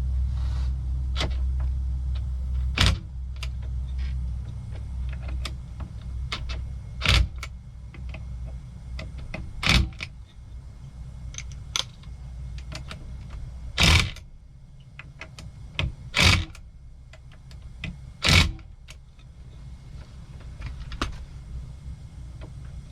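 Steering hub bolts being tightened with metal hand tools: light metallic ticking and rattling, with about six sharp clinks spread through, over a steady low hum.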